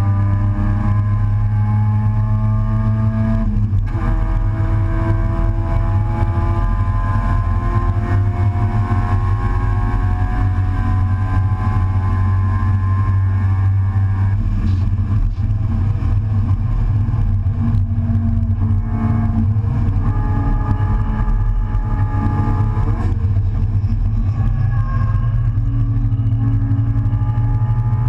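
Race car engine heard from inside the open cockpit at racing speed, its pitch climbing steadily under acceleration, with a gear change about four seconds in and another near the end. In the middle the revs hold lower and steadier before climbing again.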